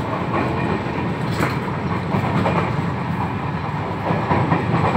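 Steady running noise inside a moving Vande Bharat electric train's chair-car coach: an even rumble and rattle of the carriage rolling along the track.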